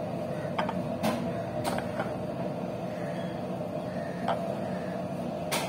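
Hands squeezing and mixing grated raw potato with corn flour and spices in a ceramic bowl: a few short, soft rustles and clicks at irregular moments over a steady low hum.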